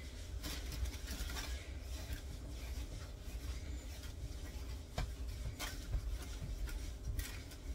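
Hands working chebakia dough, shaping it into small balls: soft rubbing with a few faint taps and clicks over a low steady hum.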